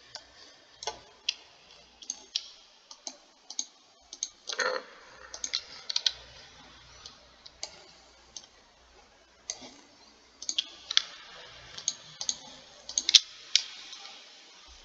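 Computer mouse clicking at an uneven pace, single sharp clicks scattered with short gaps between them.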